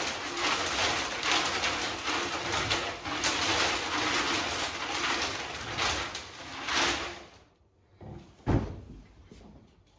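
Wooden raffle drum with clear sides being hand-cranked, the paper tickets tumbling and rattling inside. The rattling stops about seven seconds in, and a single sharp knock follows a second or so later.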